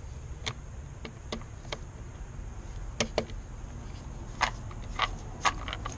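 Light metallic clicks and ticks from small screws and a driver being handled against the valve's housing while its mounting screws are started by hand. The clicks are scattered, with a few sharper ones in the second half.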